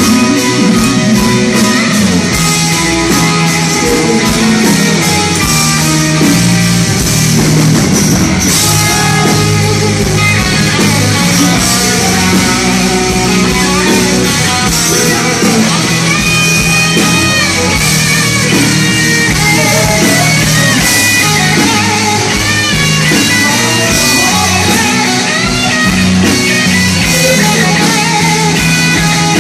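A rock band playing live at full volume, with a white hollow-body electric guitar to the fore over drums.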